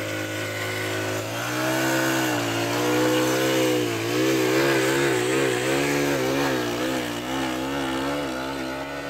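Small Honda motorcycle engine running under load. Its pitch climbs about a second and a half in, then wavers up and down quickly as the revs rise and fall over a rough, muddy track. It drops and fades near the end.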